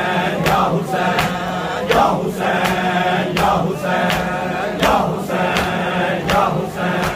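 Group of male mourners chanting a noha together, over rhythmic matam: hands striking bare chests in unison, about one sharp slap every three-quarters of a second, keeping the beat of the lament.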